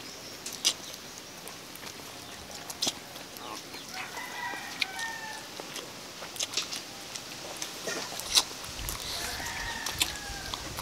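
Chickens calling in the background, with faint rooster crows about four seconds in and again near the end, over scattered small clicks.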